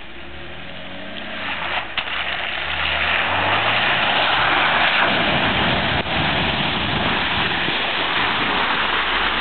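Jeep Wrangler Unlimited Rubicon driving through a shallow water pit: the engine revs up and down under the splashing of the tyres through water and mud. The sound grows louder over the first few seconds as the Jeep comes close, then holds steady.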